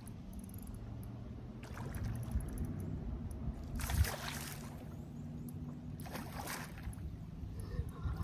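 A big hooked carp splashing and thrashing at the surface beside the boat, in three splashes about two, four and six and a half seconds in, the one near four seconds the loudest. A steady low hum runs underneath.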